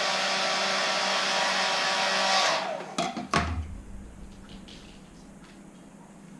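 Heat gun blowing steadily to soften vinyl wrap, then switched off about two and a half seconds in, its fan winding down with a falling pitch. Two sharp knocks follow, the second the loudest, then a faint low hum.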